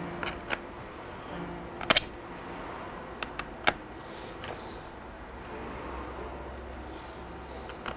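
Sharp clicks and knocks as the aluminium bottom cover of a Dell XPS 13 laptop and hand tools are handled on a workbench. The loudest is a double knock about two seconds in, with a few lighter taps around it.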